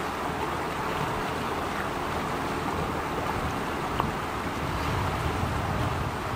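Wind buffeting the microphone: a steady, uneven rushing noise, heaviest in the low end.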